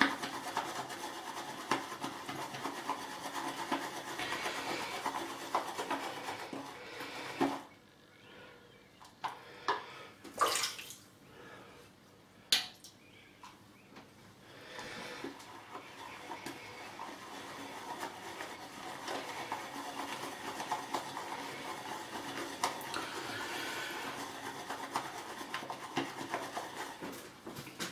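Badger-hair shaving brush whipping lather in a hard plastic shaving bowl: a steady wet swishing and rubbing. A quieter stretch of several seconds in the middle is broken by a few short taps.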